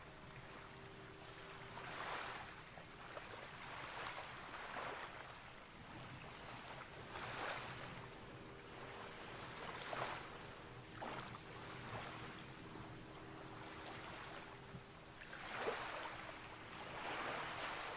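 Water sloshing and washing in irregular surges every two or three seconds, with a faint steady hum underneath.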